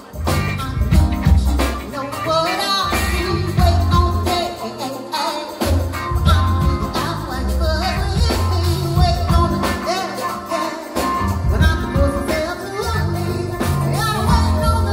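Live soul band playing: drums, bass guitar, electric guitar and keyboards, with a woman singing the lead.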